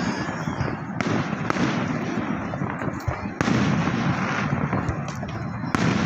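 Fireworks display: aerial shells bursting with sharp bangs about a second in, again around three and a half seconds, and near the end. A continuous crackle and rumble of the show runs between the bangs.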